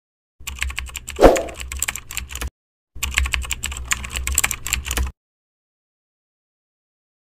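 Rapid clicking like typing on a computer keyboard, in two bursts of about two seconds each with a dead-silent gap between, and one heavier thump about a second in.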